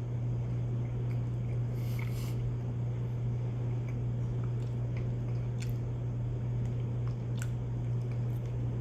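A person chewing a mouthful of cheese, with a few faint small mouth clicks, over a steady low hum.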